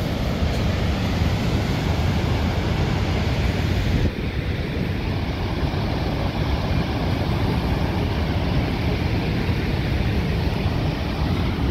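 Steady rushing of Horseshoe Falls at Niagara, a dense low noise of heavy falling water, mixed with wind buffeting the microphone. About four seconds in it turns slightly duller and quieter.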